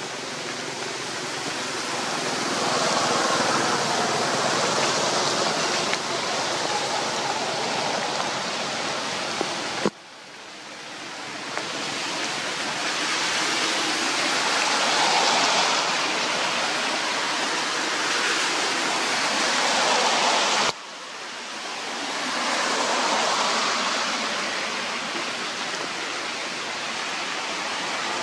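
Rain falling, a steady hiss that breaks off sharply about ten seconds in and again about twenty-one seconds in, each time swelling back up.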